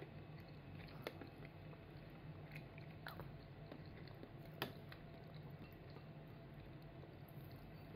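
A toddler eating quietly: faint chewing and a few light clicks of a metal spoon against a ceramic soup cup, the sharpest about halfway through, over a low steady hum.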